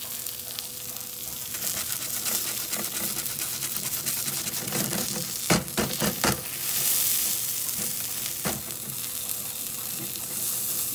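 Grilled cheese sandwich sizzling and crackling as it fries in a nonstick frying pan, with a quick cluster of sharp clicks a little past the middle and one more click a couple of seconds later.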